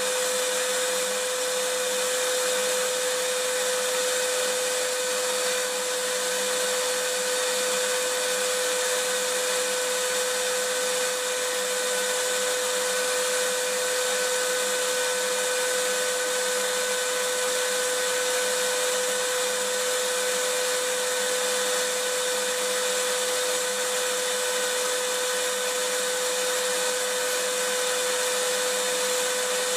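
Vacuum cleaner running steadily: an even, unbroken rushing noise with a constant whine over it.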